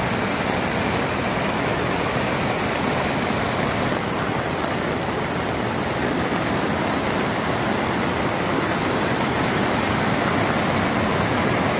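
Floodwater rushing steadily, a river swollen by a cloudburst.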